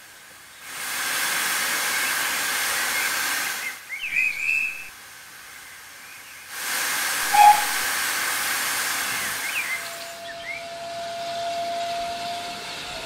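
Steam locomotive letting off steam: two long hisses of about three seconds each, a few seconds apart. A faint steady tone follows near the end.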